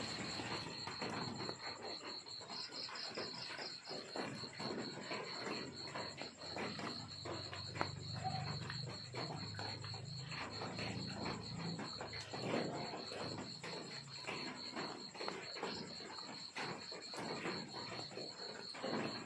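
Crickets chirping in a continuous high, rapidly pulsing trill, with scattered soft clicks and rustles.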